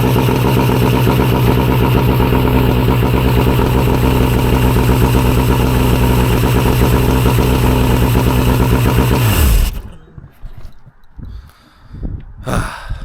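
Mercury 115 outboard motor running at a steady idle just after starting, then shut off about nine and a half seconds in, its pitch sagging as it stops. The idle holds steady instead of revving high, now that a stuck throttle linkage that held the carburettor butterflies open has been freed; it runs like a dream.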